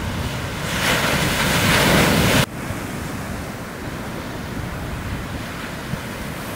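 Ocean surf breaking and washing in the shorebreak, with wind on the microphone. A louder rushing surge in the first couple of seconds cuts off abruptly about two and a half seconds in, leaving a steadier, quieter wash of surf.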